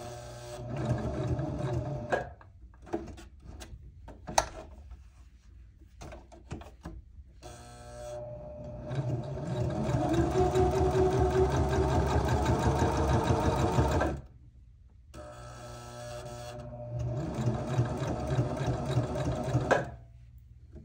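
Electric sewing machine stitching around the edges of a paper playing card in three runs: a short one at the start, a longer, louder one in the middle that speeds up, and another near the end. A few sharp clicks fall in the pause between the first and second runs.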